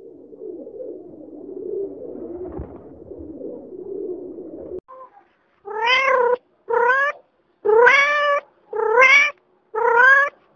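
Rock pigeons cooing in a low, throaty murmur, then a tabby kitten meowing five times about a second apart, each meow rising and then falling in pitch.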